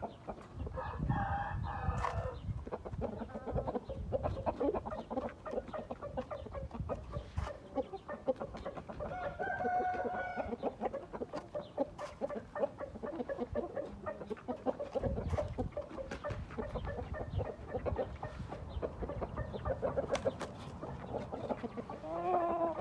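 Gamefowl roosters crowing twice, about a second in and again around nine seconds in, over steady clucking from the flock.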